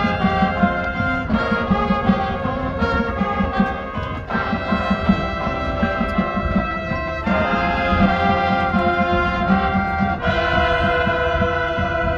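High school marching band playing live on a football field: the brass section holds loud chords that change about every three seconds, over a steady pulse of drums.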